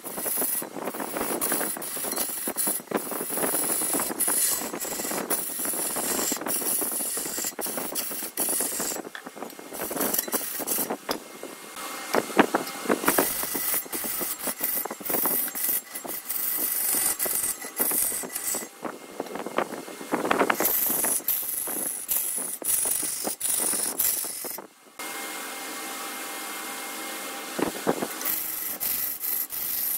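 Wood scraping and hissing as it spins on a wood lathe against a turning tool, heard in a string of short edited segments that cut in and out abruptly. A few seconds near the end hold a quieter, steady hum.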